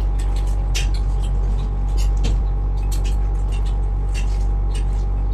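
Steady low machine hum with a thin, steady whine running through it, under frequent short clicks and taps from eating off plates.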